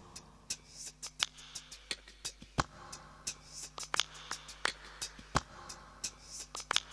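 Music with a percussive pattern: quick clicking strokes several times a second and a deeper drum hit roughly every three seconds, over a faint steady hum.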